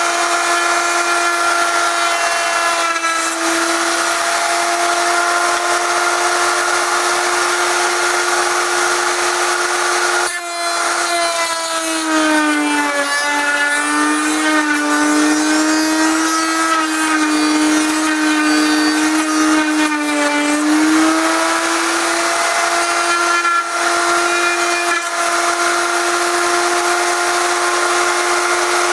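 Table-mounted router running at full speed with a steady high whine. From about twelve seconds in to about twenty-one seconds its pitch sags and wavers as the bit cuts a groove in wood under load, then it recovers. A short break in the sound comes about ten seconds in.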